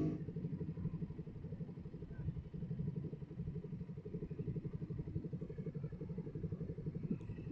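Motorcycle engine idling at a standstill: a steady low rumble of evenly spaced firing pulses.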